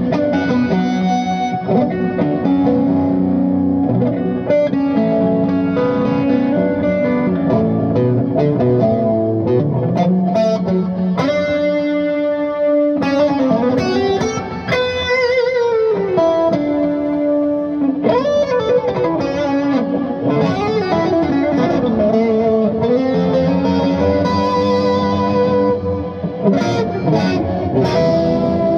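Electric guitar played through a Bludotone Joyeuse tube amplifier: lead lines of single notes with string bends and held notes, and a ringing held chord about halfway through.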